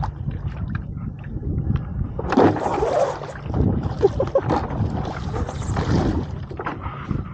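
Wind buffeting the microphone, with water sloshing and splashing around a paddleboard in shallow water from about two seconds in until near the end.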